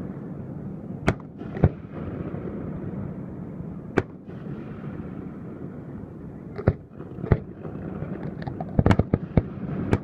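Aerial fireworks shells bursting with sharp bangs: a few single bangs spaced a second or more apart, then a rapid cluster of bangs near the end.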